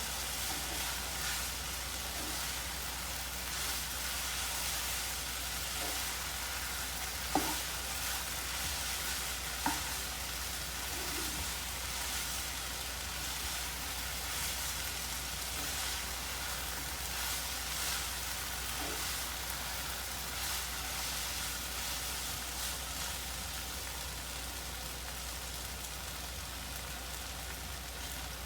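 Bakmi goreng noodles with bean sprouts and garlic chives sizzling steadily as they stir-fry in a pan, with a few light knocks of the stirring utensil against the pan.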